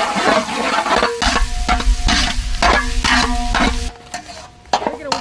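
A long paddle stirring chopped onions, green chillies and curry leaves frying in oil in a large pan, scraping about three times a second. Background music holds long notes underneath, and the stirring stops about four seconds in.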